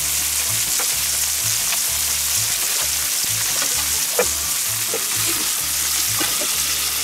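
Beef burger patties sizzling steadily on a hot steel griddle plate over a charcoal fire, with a few short clicks.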